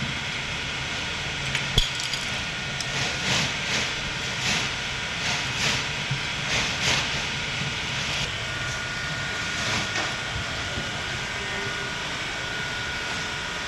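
Plastic push-on wheel reflector being handled and clipped onto bicycle spokes: one sharp click about two seconds in, then a run of short soft clicks and rustles, over a steady background hiss.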